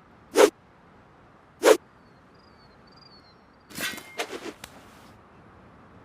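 Two quick swishes of a makeshift sword swung through the air, about a second apart. These are followed by a short clatter of several rapid hits with a slight metallic ring.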